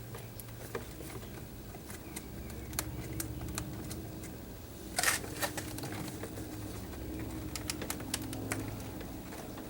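Scattered small plastic clicks and taps as a car door panel is handled and its wiring harness connectors are unplugged, with a brief louder clatter about halfway through. A faint steady hum runs underneath.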